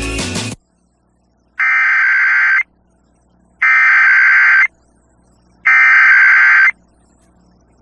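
Emergency Alert System SAME header: three identical digital data tones, each about a second long with a second's gap between them, carrying the coded tornado warning. A brief loud sound comes right at the start.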